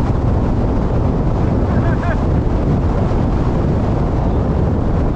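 Storm-force mountain wind buffeting the microphone: a loud, continuous low rumble with no letup.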